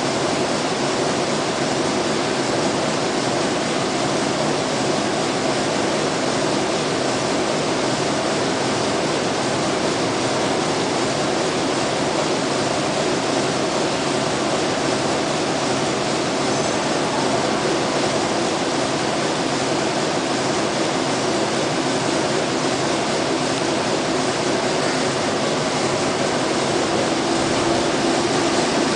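Yitai needle loom weaving zipper tape, running steadily with an even, dense mechanical noise.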